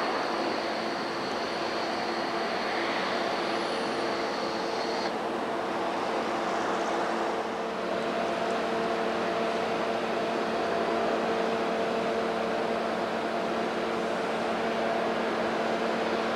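Steady mechanical hum and rumble of a freight train's diesel engines, holding a few constant tones with no clatter of wheels over rail joints. A faint high whine in the background stops about five seconds in.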